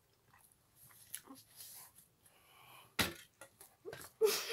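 Faint, scattered mouth-eating noises and breathing from two people eating soft bread buns without their hands, with a single sharp knock about three seconds in. Just before the end comes a loud, breathy vocal outburst.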